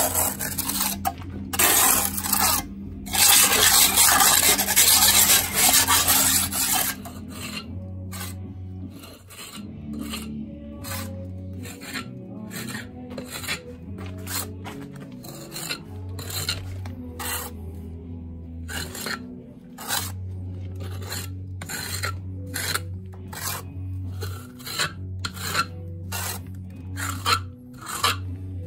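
Steel masonry tools scraping along fresh mortar joints in a concrete block wall as the joints are struck and trimmed. There is a loud, continuous rasping for about the first seven seconds, then a string of shorter, quieter scrapes and taps.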